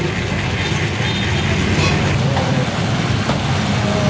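Steady low engine hum of street traffic, with faint voices in the background.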